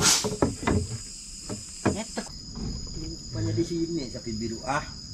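Night insects ringing steadily at two high pitches. A short, loud noisy burst at the very start, a knock about two seconds in, and a few low voice sounds near the end.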